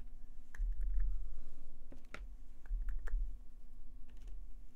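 Light, irregular tapping clicks as yellow acrylic paint is dabbed onto cardboard with a makeup sponge, over a steady low hum.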